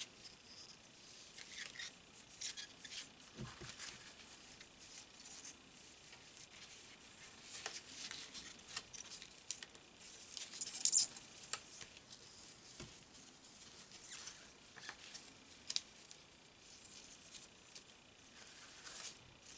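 Faint rustling and scraping of hands tying a velvet ribbon into a knot and bow on a paper scrapbook page, the cardstock shifting and brushing under the fingers. A short, louder scrape comes about halfway through.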